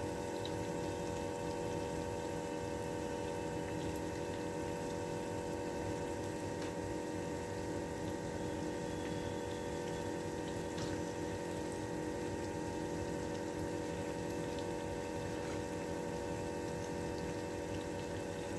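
Steady sizzling of maida dough pieces deep-frying in oil on a low flame, with a steady hum beneath it.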